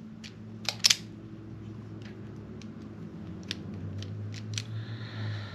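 Wire strippers cutting and pulling the insulation off a wire end: a sharp double snap just under a second in, then a few light clicks, over a steady low hum.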